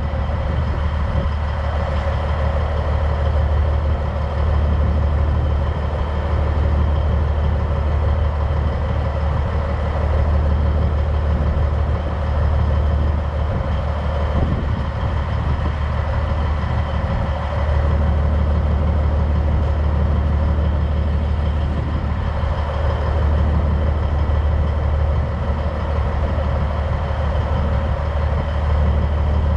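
Semi truck's engine idling steadily, a deep even hum that holds throughout.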